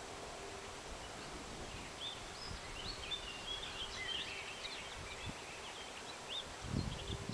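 Songbird singing: a long run of short, quick chirping and twittering notes, over a steady outdoor hiss. A few low thumps come near the end.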